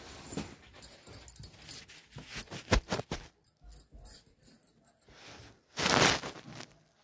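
Handling noise from a phone being moved about against a woollen sweater: rustling, scattered knocks and clicks, and a loud scrape of fabric over the microphone about six seconds in.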